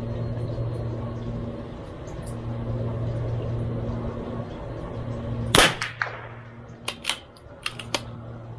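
A single .22LR shot from a CZ 457 MTR bolt-action rifle about five and a half seconds in, followed over the next two seconds by several sharp metallic clicks as the bolt is worked to chamber the next round. A steady low hum runs underneath before the shot.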